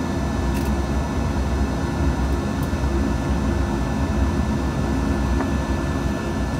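Steady low machine hum and rumble, with a few faint ticks.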